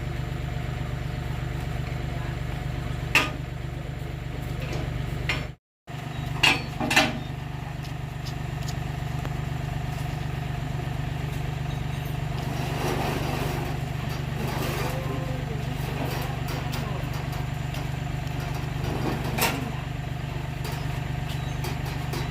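An engine running steadily at idle, with a few sharp metallic knocks over it, about 3 s in, twice around 6 to 7 s, and once more near the end.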